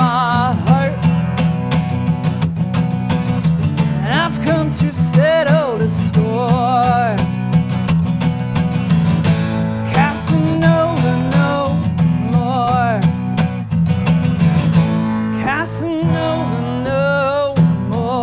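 Acoustic guitar strummed steadily under a high sung melody with wavering vibrato held on long notes.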